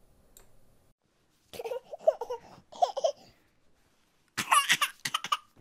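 A baby sound effect of a baby laughing and babbling, in three short bursts.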